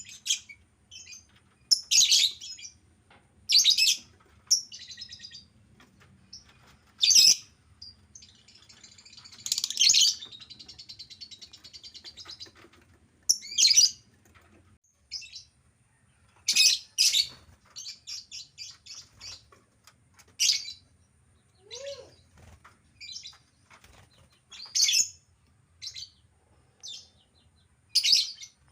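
Lovebirds giving shrill, sharp chirps in short bursts at irregular intervals. There is a longer buzzing chatter about a third of the way in and a quick run of short chirps after the middle.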